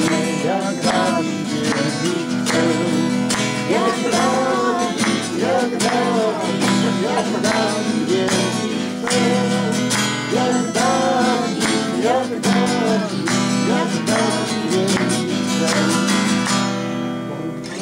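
Acoustic guitar strummed steadily while a man sings a worship song, and the song ends near the end.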